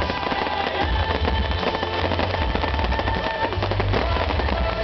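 Fireworks display: a rapid, continuous crackling and popping of shells and fountains over a low rumble, with music playing under it.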